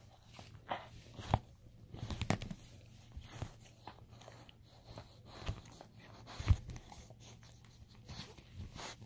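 A dog chewing and biting on a toy: irregular crunches and clicks, with sharper bites about a second and a half in and again near six and a half seconds.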